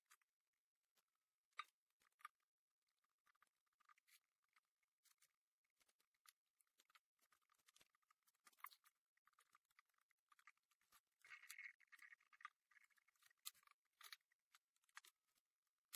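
Near silence, broken by faint, irregular small clicks and scratches from components and jumper wires being handled and pushed into a solderless breadboard.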